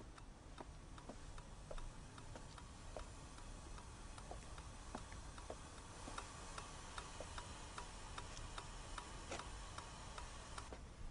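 A metronome ticking faintly and steadily, about two ticks a second.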